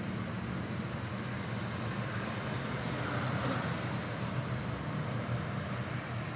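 Bus engine running with a steady low rumble as the bus moves along the road.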